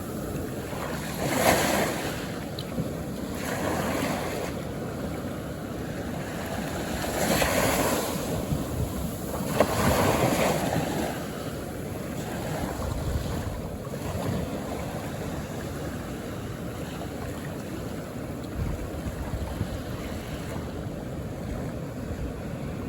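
Small, calm ocean waves washing onto the shore: a steady wash of surf with louder surges as waves break, about 1.5, 7.5 and 10 seconds in.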